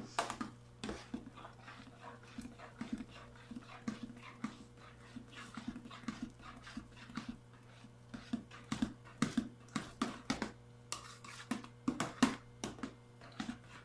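Thick, freshly cooked hot-process soap being stirred by hand in a clear plastic container: irregular soft clicks, squelches and taps, a few a second, as the utensil drags through the paste and knocks against the sides.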